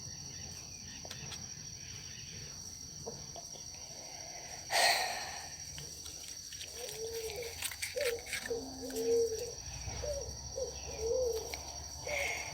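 Steady high-pitched trilling of a cricket. About five seconds in there is one short, louder burst of noise, and in the second half a run of short low notes that rise and fall.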